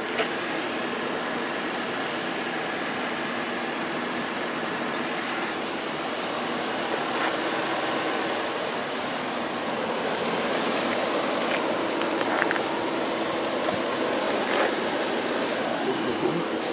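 Steady rushing noise with a faint low hum under it, and a few light clicks.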